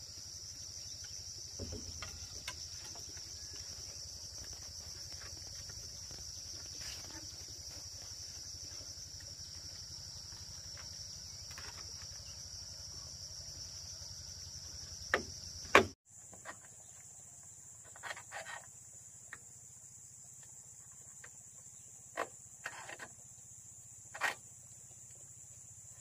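Steady high-pitched insect chorus with a fast pulsing trill. About sixteen seconds in it cuts abruptly to a higher-pitched insect chorus. A few sharp knocks are scattered through it, the loudest just before the cut.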